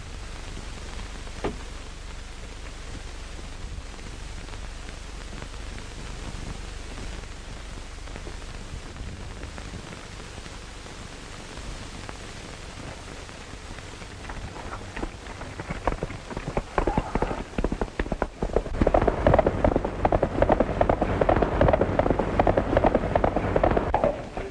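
Steady hiss of an old film soundtrack, then from about fifteen seconds in, a horse's hooves galloping: a fast, dense patter of hoofbeats that grows loud and cuts off shortly before the end.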